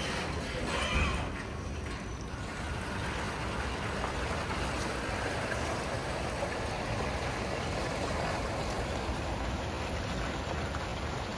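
BYD electric garbage truck driving off at low speed: a steady hiss from its drive and tyres on the brick paving, with no engine note.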